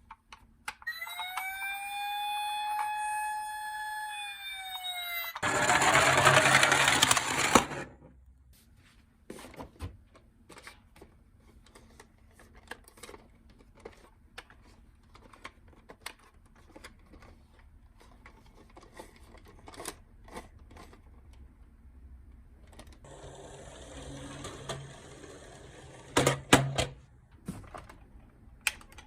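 A toy emergency vehicle's electronic siren gives one long wail, rising, holding and then falling over about four seconds. Right after it comes a loud rattling rush of about two seconds. Near the end a softer rush ends in a few sharp knocks.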